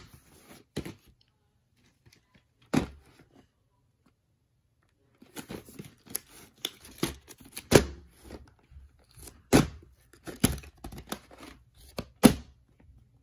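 Plastic VHS clamshell cases being handled: sharp plastic clicks and knocks with rustling. A few clicks come first, then about two seconds of quiet, then a busy run of clicks and rustles, with the loudest knocks in the second half.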